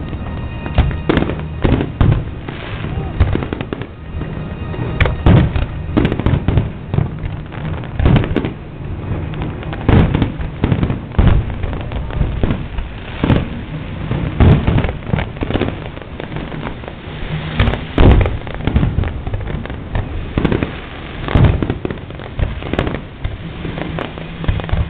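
Fireworks show: aerial shells bursting in quick, irregular succession, a loud bang every second or so, with crackling in between.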